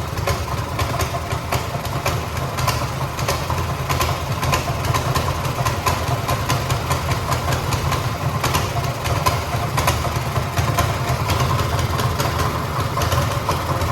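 Single-cylinder engine of a new Realtree 200 mini bike idling steadily on its stock exhaust just after a cold first start, fresh out of the crate, with a quick even ticking over a low drone.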